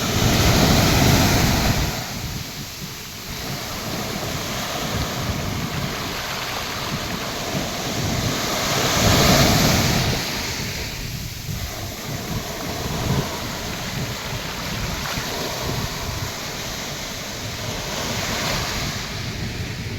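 Atlantic Ocean surf breaking on the beach, a steady wash of waves with two louder breaks, about a second in and about nine seconds in, and a smaller one near the end. Wind rumbles on the microphone.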